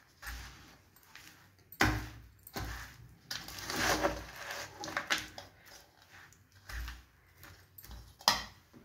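Metal spoon stirring and scraping a sticky mix of sesame seeds, peanuts and jaggery syrup in a stainless-steel bowl: irregular scrapes and knocks, with a longer scrape about four seconds in and a sharp knock near the end.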